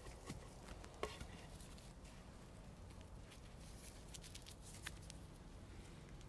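Quiet, scattered soft taps and rustles of hand work in soil as garlic cloves are planted with a dibber, with a sharper tick about a second in and another near five seconds.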